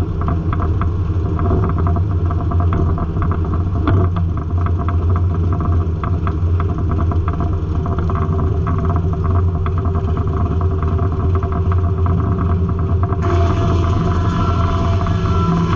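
Circle sawmill running: a steady machine drone with a low hum and constant rattling and clatter. Near the end the sound turns brighter and a higher steady whine comes in.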